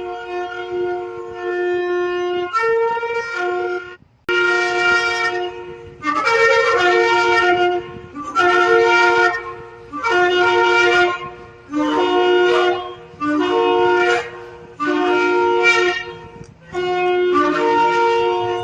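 A shofar (ram's horn) being blown. First come long held notes with a brief break about four seconds in, then a run of separate blasts about every two seconds, each moving between a lower and a higher note.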